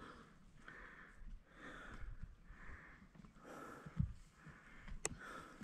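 A hiker breathing hard and rhythmically close to the microphone while climbing a steep trail, with about one breath a second. A soft thump comes about four seconds in and a sharp click about a second later.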